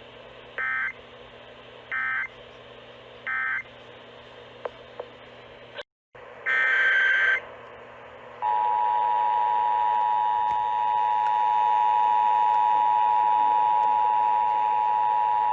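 Emergency Alert System data tones over radio static and hum: three short, identical warbling bursts about a second apart, the end-of-message code that closes the weather-radio alert. After a brief dropout comes one longer warbling header burst. Then the steady two-tone EAS attention signal starts about eight seconds in and holds.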